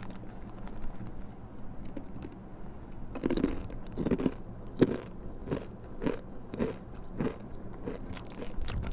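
A crunchy snack chewed close to the microphone. After about three seconds of quiet, the crunches come in a steady run of roughly two a second.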